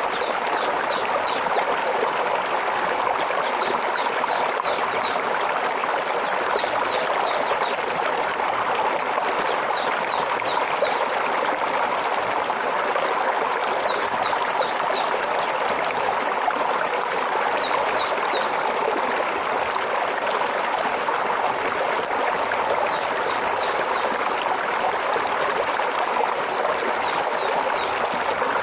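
Small stream babbling and trickling steadily over stones, with short, high bird chirps coming in small groups every few seconds.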